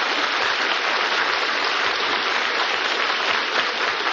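Studio audience applauding steadily, a dense, even patter of many hands clapping, heard on a 1953 radio broadcast recording.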